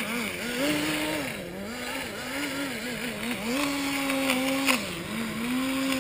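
Small nitro (glow-fuel) engine of a Kyosho Nitro Blizzard RC tracked snow vehicle running, its pitch rising and falling over and over as the throttle is worked. A few sharp clicks about four and a half seconds in.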